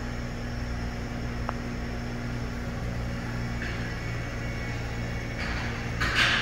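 Haas EC-630 horizontal machining center powered up with a steady low electrical hum, with a faint click about a second and a half in. A short burst of hiss near the end is the loudest sound.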